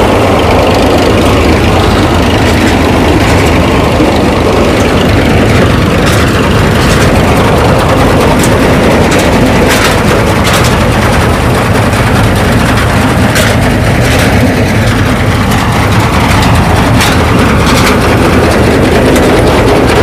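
Tractor's diesel engine running a mounted Vikas 325 mini combine harvester: a loud steady drone with a sharp clack every few seconds.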